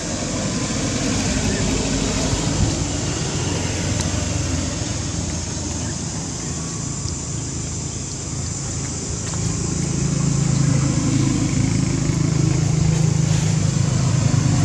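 Steady low engine rumble of a motor vehicle running near by, growing louder about ten seconds in.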